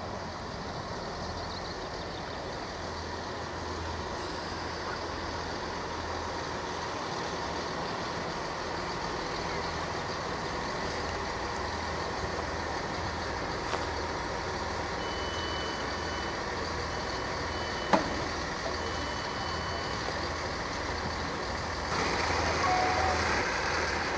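GWR Class 165 Networker Turbo diesel multiple unit idling at a platform, its underfloor diesel engines giving a steady low throb. Partway through, a run of short high beeps sounds on and off for several seconds, followed by a single sharp click, and the noise grows louder near the end.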